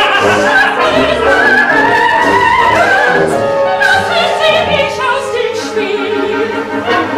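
Operatic solo singing with a small chamber orchestra of strings and winds accompanying, from a live operetta performance.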